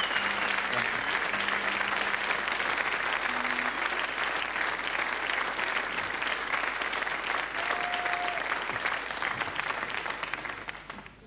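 Concert audience applauding, dense clapping that dies away near the end.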